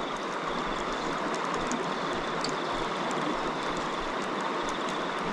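Steady rush of river water running over rocks, unchanging throughout.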